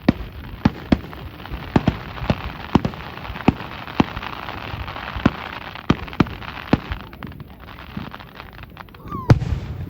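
Fireworks display: a string of sharp bangs at irregular spacing, with a dense crackling like rain through the middle, and the loudest bang near the end.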